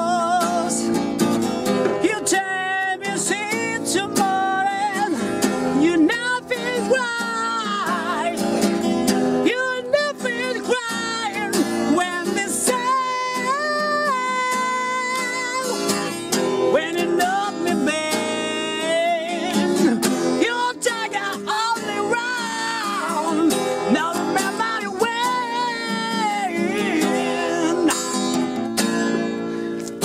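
Acoustic guitar played continuously, strummed and picked, with a wordless singing voice gliding and wavering in pitch over it.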